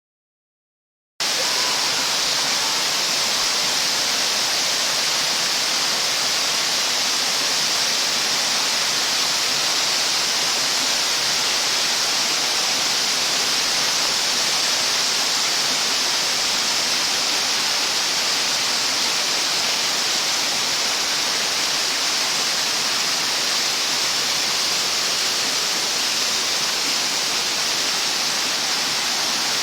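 Waterfall rushing: a steady, unbroken roar of falling water that comes in about a second in and holds even throughout.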